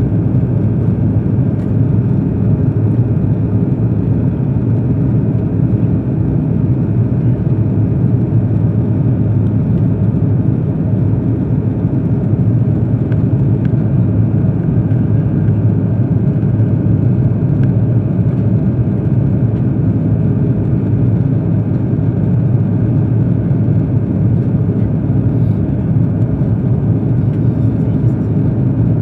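Steady low rumble of an Airbus A330-200 jet airliner's engines heard inside the passenger cabin, unchanging throughout.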